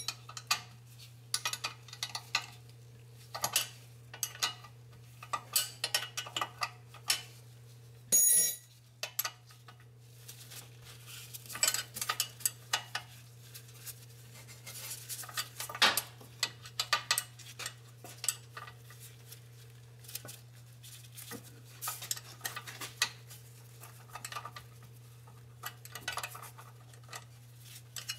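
Hand wrench and ratchet working the 11 mm bolts of a drive shaft's yoke flange: irregular metallic clicking and clinking, with one louder clank about eight seconds in. A steady low hum runs underneath.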